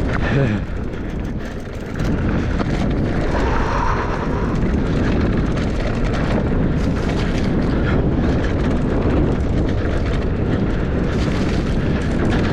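Mountain bike riding fast down a dirt trail: a steady rush of wind and tyre noise on the action camera's microphone, growing louder about two seconds in.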